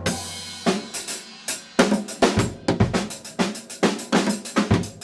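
Drum kit played: a cymbal crash at the start, then a quick, uneven run of drum strokes about three to four a second, with a couple of low bass drum hits.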